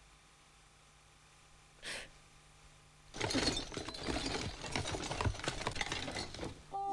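A short sniff about two seconds in, then toys clattering and rattling for about three and a half seconds as a hand rummages through a box of toys.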